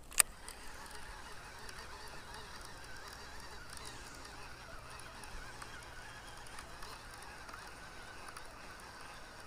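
Baitcasting reel being cranked steadily to retrieve a lure, a quiet wavering whir. A single sharp click comes just after the start, as the reel is engaged after the cast.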